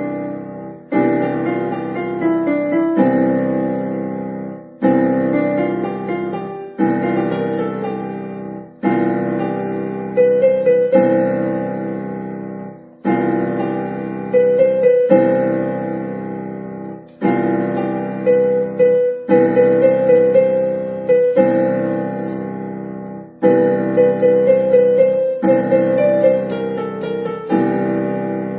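Portable electronic keyboard played in a piano voice: a melody over sustained chords, with a new chord struck about every two seconds, each starting loud and then fading.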